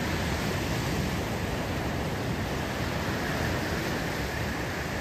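Ocean surf breaking and washing up a sandy beach: a steady, even rush of waves.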